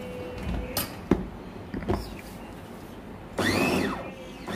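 A few plastic clicks as the lid of an electric mini chopper is fitted, then the chopper's motor runs in a short pulse about three and a half seconds in, whirring up and falling away as it grinds dal with garlic, ginger and spices. A second pulse starts at the very end.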